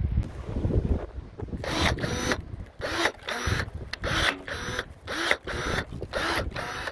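DeWalt battery-powered pruning shears whirring in short bursts, about eight in a row from about a second and a half in, as the blade snips thin fruit-tree branches. Wind rumbles on the microphone at the start.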